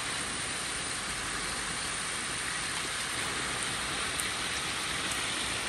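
Steady, even hiss of water running in a shallow muddy channel.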